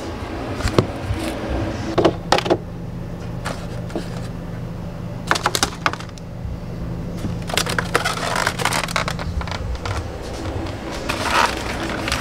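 Groceries being taken out of a refrigerator and set down on a kitchen counter: several knocks and clatters, then rustling of plastic packaging, over a steady low hum.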